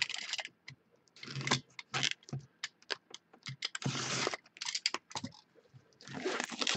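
A knife scratching and slicing along the plastic wrap of a sealed trading-card box, in short bursts of scraping and crinkling with sharp clicks between them.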